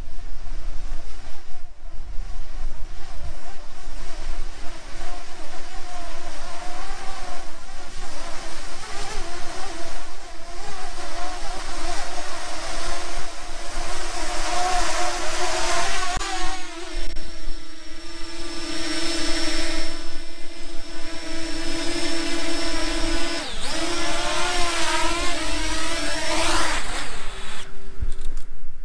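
Small quadcopter drone's propellers buzzing, the pitch wavering and sweeping up and down as the motors change speed, over a low rumble.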